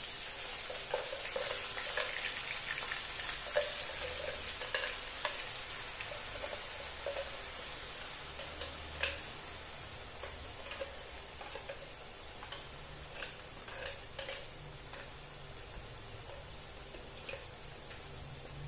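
Ground chili spice paste sizzling in hot oil in a wok, with many scattered spitting pops. It starts as the paste goes in, loudest in the first few seconds, then eases gradually as the paste sautés.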